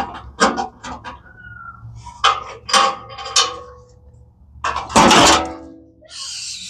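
Scattered clicks and knocks of metal tools and parts being handled, with one loud metallic clang about five seconds in that rings briefly.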